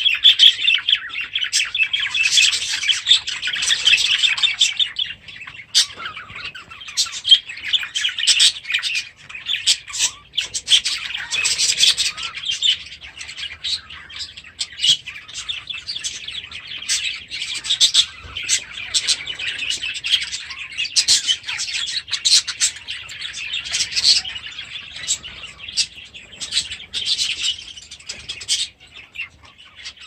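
A flock of budgerigars chattering and warbling continuously, with many short, sharp chirps over the twittering.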